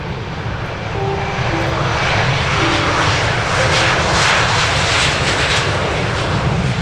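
Jet engines of an Airbus A320-family airliner at high power on its takeoff roll. The roar grows louder about a second in and is loudest as it passes.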